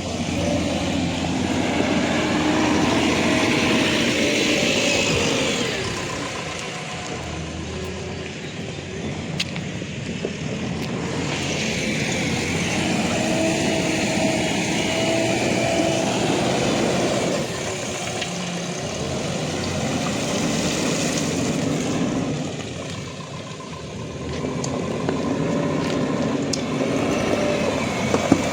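Diesel engines of heavy earth-moving machines, a tracked excavator and a JCB backhoe, working under load. The engine note rises and falls again every several seconds as the machines dig and dump debris.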